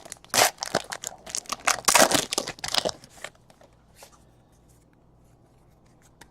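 Crinkling and tearing of plastic card packaging, a trading-card pack being opened and handled, dense for about three seconds, then a few faint clicks.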